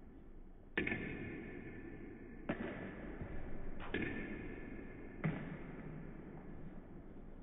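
Table tennis ball cracking off a rubber paddle and clicking on the table during a forehand smash drill: about four sharp hits roughly a second and a half apart, each echoing in the hall.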